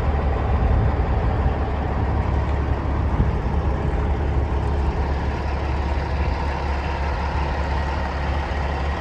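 Caterpillar 3406 inline-six diesel idling steadily, a low, even rumble.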